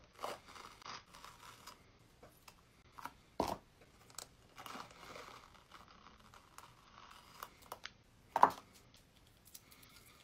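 Rhinestone-covered mask being worked loose and peeled at its edges from the skin: faint, intermittent sticky crackling and tearing with small clicks, and two sharper snaps, one about a third of the way in and one near the end.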